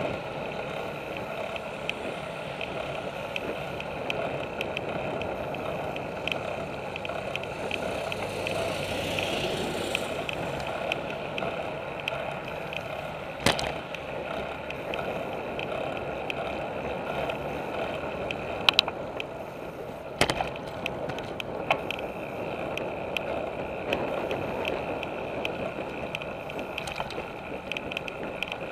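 Road bicycle riding along a paved path, heard through a handlebar-mounted camera: steady tyre and rolling noise with frame and mount rattle, and a few sharp knocks, one about halfway through and two more a few seconds later.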